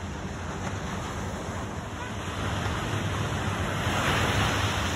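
Ocean surf washing onto the beach, with wind buffeting the microphone; the rush swells louder about three seconds in.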